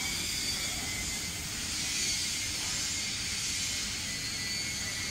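LM3015G laser cutting machine cutting sheet metal: a steady hiss from the cutting head, with a thin high tone under it.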